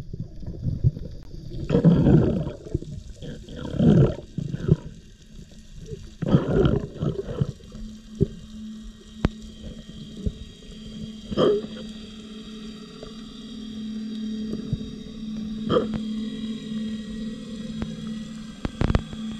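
A boat's engine and propeller heard underwater: a steady low droning hum that comes in about eight seconds in and grows louder. Before it, a few loud rushing noises of water close to the microphone.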